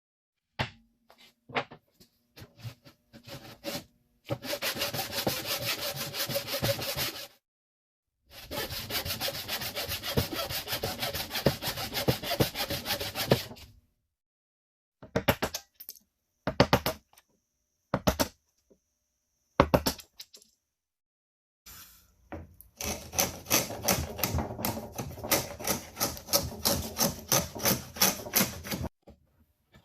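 Hand saw cutting red oak in rapid, even strokes, in three long runs of several seconds with short bursts of strokes between.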